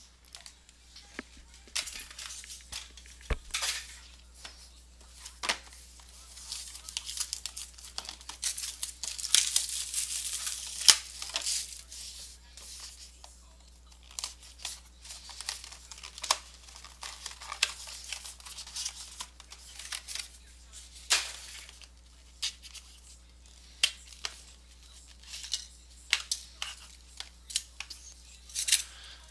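A sealed cardboard trading-card box being opened by hand. A blade slices through its tape seal, with a run of tearing and scraping in the middle. Cardboard and a foam insert rub and rustle, with scattered clicks and taps of handling.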